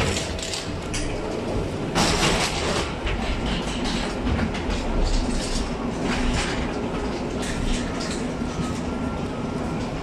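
Rattling, clattering noise of people walking down an airport jet bridge to the aircraft door, over a steady low rumble, with a louder burst of clatter about two seconds in.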